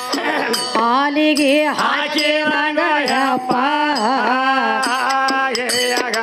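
Gee gee pada folk singing: voices sing a long, ornamented, chant-like melody over the steady drone of a plucked tuntune. Frame drum beats and small hand cymbals clink in rhythm.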